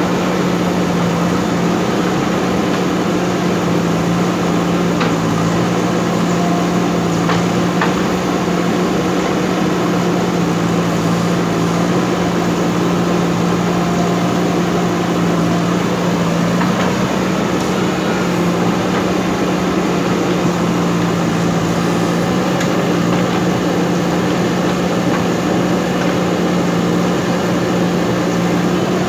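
JCB backhoe loader's diesel engine running at a steady speed, a constant hum, with a few faint clicks.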